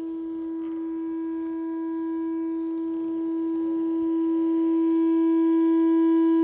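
A single electric guitar note played through a small battery-powered Strum Buddy guitar amplifier, held at one steady pitch and slowly swelling louder rather than dying away. With the little speaker pressed against the guitar body near the pickups, feedback is sustaining the note.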